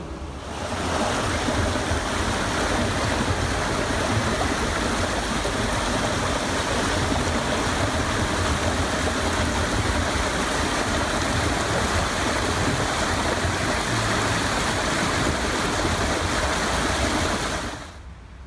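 Shallow stream flowing over stones: a steady rush of water that starts abruptly about half a second in and cuts off shortly before the end.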